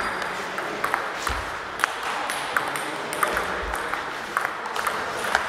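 Table tennis balls clicking off paddles and tables, irregular sharp ticks from the rally at hand and from neighbouring tables, over a steady background noise of the busy hall.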